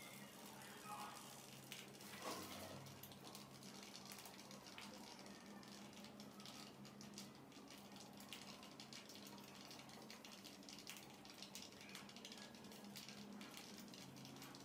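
Near silence: room tone with a faint steady low hum and a few scattered faint ticks.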